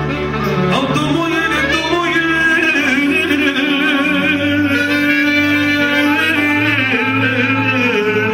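Live Romanian folk-pop music (muzică populară): a saxophone and a male singer singing with a wavering vibrato, over a steady bass line.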